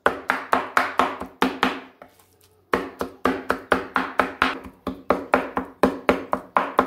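Large kitchen knife chopping raw chicken breast on a wooden cutting board, mincing it by hand: quick, even strikes about four a second, with a short pause about two seconds in.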